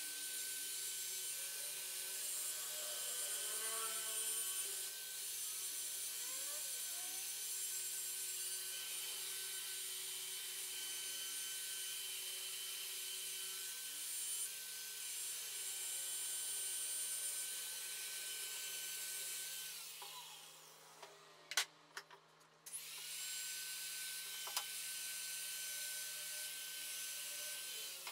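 Hand-held rotary sander-polisher with a sanding disc running and grinding across the face of a softwood frame, a steady hiss with a thin motor whine. About two-thirds of the way through it drops away for a couple of seconds with two sharp knocks, then runs and sands again.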